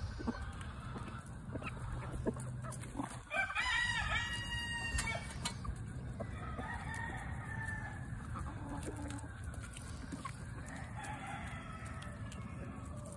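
Chickens clucking, with a rooster crowing once about three and a half seconds in for about two seconds, the loudest sound here; fainter calls follow later.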